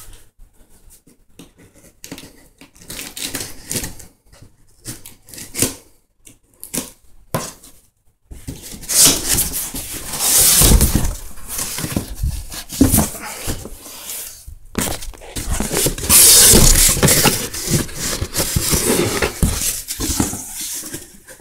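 Cardboard shipping box being opened by hand: scattered clicks and scrapes at first, then from about eight seconds in a long run of loud rustling, scraping and tearing as the packing tape comes off and the flaps are pulled open.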